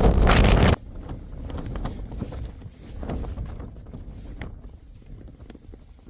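Strong gale-force wind buffeting the microphone, cutting off suddenly under a second in. After that comes a much quieter background of wind with faint, irregular taps and rustles that slowly fade.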